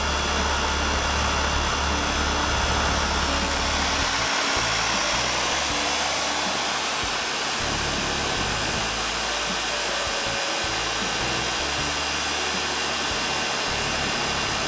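Steady, loud rushing noise of a running machine, with music playing underneath.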